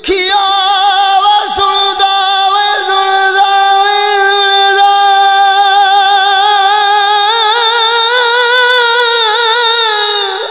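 A man singing a Punjabi Sufi kalam holds one long high note on the word 'dukhiya' for about ten seconds. The vibrato grows wider toward the end, and then the note fades away.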